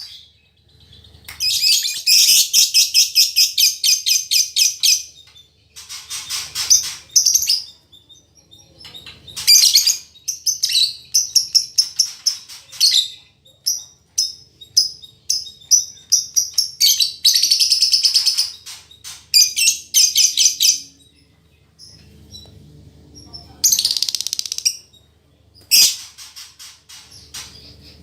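Female lovebird chattering nonstop in long strings of rapid, high chirps and trills, broken by short pauses.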